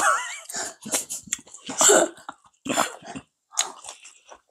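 A person's voice: a short wavering vocal sound, then about four loud, breathy bursts from the throat, roughly a second apart.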